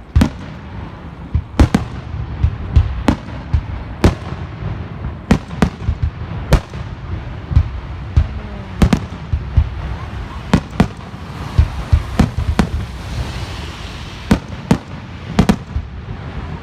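Fireworks going off: a steady rumble of distant bursts with sharp, loud bangs at irregular intervals, often one or two a second. A hiss swells briefly about 13 seconds in.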